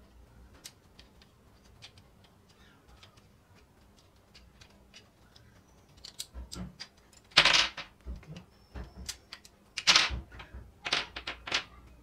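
Hands working a plastic universal air-conditioner remote and prying its AA batteries out of the battery compartment: faint scattered ticks at first, then sharp plastic clicks and knocks, the loudest about halfway through and again near the end.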